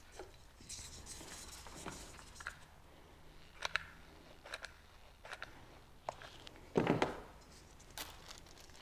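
Hands gluing baubles onto branches with a hot glue gun: scattered small clicks and taps, with a louder rustle about seven seconds in.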